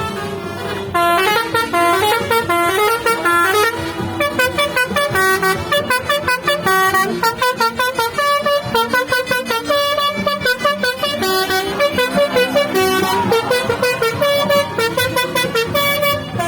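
Basuri telolet horn on a bus, a multi-tone air horn playing a quick melody of short notes that change pitch several times a second, starting about a second in.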